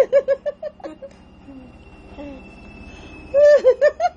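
A young child's high-pitched giggling in quick short bursts: a run of rapid pulses in the first second, then another burst near the end.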